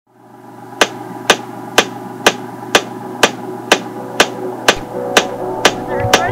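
Background music: a sharp percussive click on the beat about twice a second over a steady low hum, with sustained chord tones coming in near the end.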